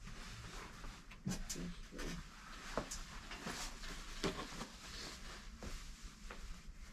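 Irregular light rustling and handling noises with scattered clicks and taps.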